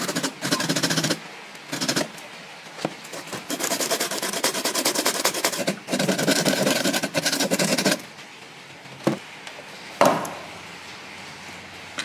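A metal hand file rasping along the edges of a PVC sheet box in fast back-and-forth strokes, in several runs with short breaks, smoothing the box's edges. Two sharp knocks follow near the end.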